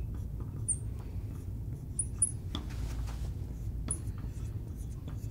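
Marker writing on a lightboard's glass: faint scratchy strokes and a few short, high squeaks of the tip on the glass.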